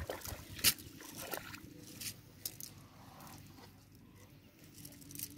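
Scattered soft rustles and sharp little taps as a wet nylon cast net holding small fish is handled on sand, the sharpest tap about a second in.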